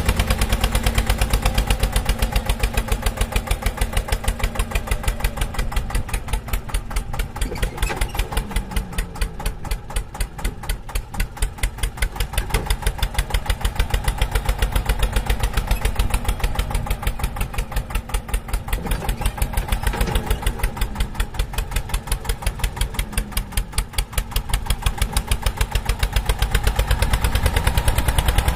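Eicher 241 tractor's single-cylinder diesel engine chugging under load while pulling a heavily loaded sand trolley, its exhaust beating in rapid, even pulses. Twice the beat slows and picks up again as the engine labours.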